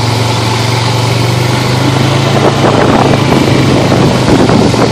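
Honda ATV engine running steadily while riding a dirt trail, with a dense rush of wind and ride noise over it that gets rougher and a little louder from about halfway.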